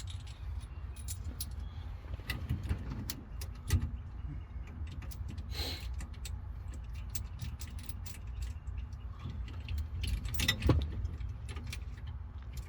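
Scattered metallic clinks and clicks of washers, bolts and a steering wheel puller being handled and fitted, with a louder clink a little under four seconds in and again near the end, over a steady low hum.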